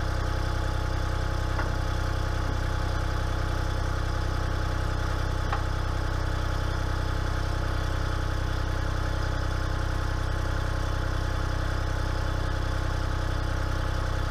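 Takeuchi TB125 mini excavator's diesel engine idling steadily, with a couple of faint clicks.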